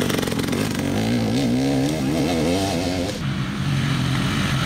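Enduro motorcycle engine revving hard as the bike accelerates through a dirt corner, its pitch wavering up and down with the throttle. About three seconds in it gives way suddenly to a steadier, lower engine note.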